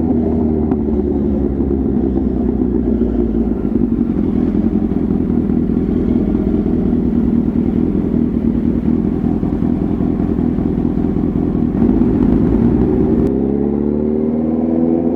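Kawasaki ZX-10R's inline-four engine and exhaust under way at steady revs. Near the end the sound changes abruptly and the pitch climbs as the bike accelerates.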